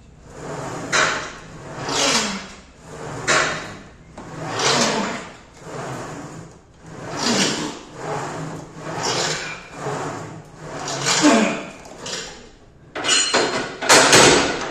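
Plate-loaded 45-degree leg press sled sliding up and down its rails in repeated swishes, about one a second, through a set of reps. A couple of sharper knocks come near the end.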